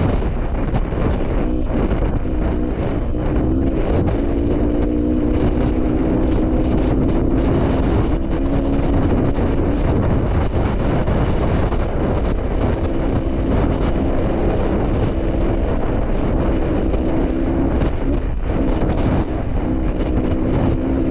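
Dirt bike engine running while being ridden, its pitch shifting up and down with the throttle, under heavy wind noise on the microphone.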